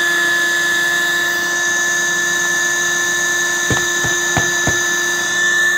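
Built-in electric pump of an Intex air mattress running with a steady whine and hiss. Four quick light knocks come about two-thirds of the way in.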